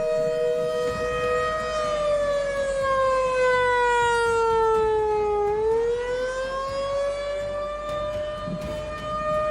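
Warning siren sounding a two-note chord. It holds steady, sinks slowly in pitch for a few seconds, then winds back up over about a second and holds again.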